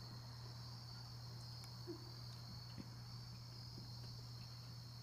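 Faint background: a steady high-pitched chirring like crickets over a constant low hum, with a few soft ticks. No burp is heard.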